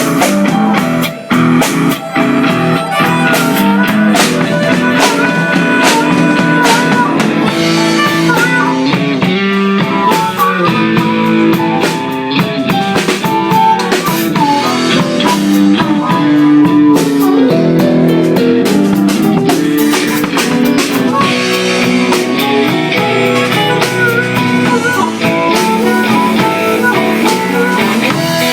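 A band playing during a sound check: guitar over a drum kit in a blues style, loud and continuous.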